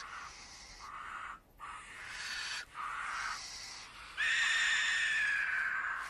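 Barn owl chicks giving a series of raspy hissing calls, the snoring food-begging hiss of young barn owls. The longest and loudest, nearly two seconds, starts about four seconds in.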